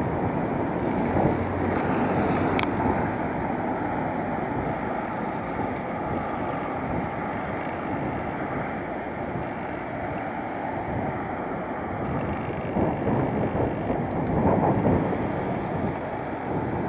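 Wind buffeting the camera microphone: a steady low rushing noise that swells and eases in gusts.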